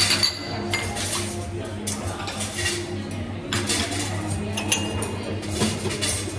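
Clinks and clatter of crockery and metal at a café espresso machine, with a few sharp knocks among them. A steady low hum runs underneath.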